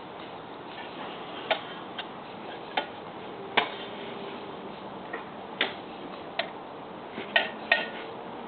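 Mechanical sandbox backhoe digger being worked: about ten sharp clicks and knocks from its levers and joints, spaced irregularly, some ringing briefly, over a steady hiss.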